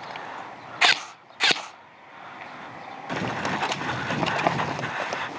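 Two short, sharp airsoft gun shots about two-thirds of a second apart, then a steady rustle of movement from about three seconds in.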